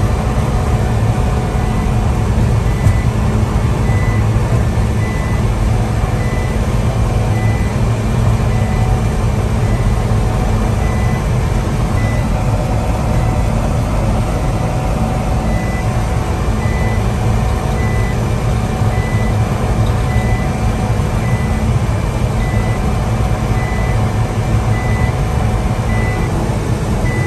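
Cab noise of a 1989 Suzuki Carry supercharged 550cc kei truck cruising at highway speed: a steady engine and road drone. Over it, the truck's speed-alarm chime beeps about once a second, the warning that the truck is going faster than the set limit.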